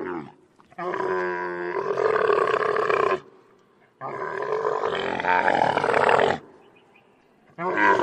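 Camel calling: loud, rough, pitched bellows with a wavering pitch. A short call at the start, then two long calls of about two and a half seconds each, and a third beginning near the end.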